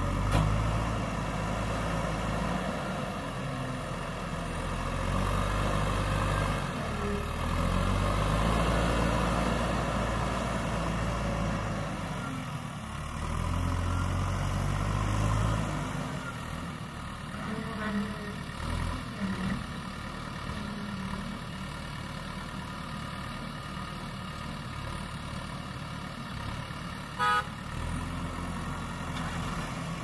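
JCB 3DX backhoe loader's diesel engine working under load as the front loader digs and lifts soil, swelling louder twice in the first half, then running lower and steadier. A short beep-like tone sounds about three seconds before the end.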